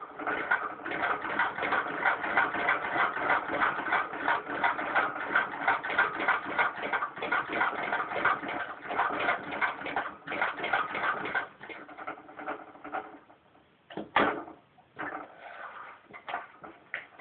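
An 1889 Singer VS2 fiddle-base treadle sewing machine, turned by hand at its handwheel, stitches through six layers of denim with a quick, even clatter from the needle and shuttle mechanism. It slows and stops about thirteen seconds in, followed by one louder rasp and a few light clicks.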